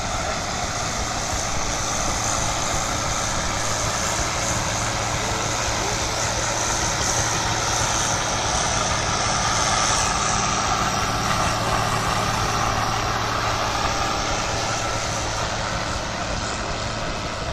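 Case International 1255XL tractor's turbocharged six-cylinder diesel engine running steadily under heavy load, pulling a weight-transfer sled. It grows slightly louder about ten seconds in.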